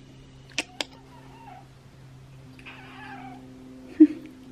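Domestic cats meowing: a few faint meows and one short, louder call near the end. Two sharp clicks sound about half a second in, over a steady low hum.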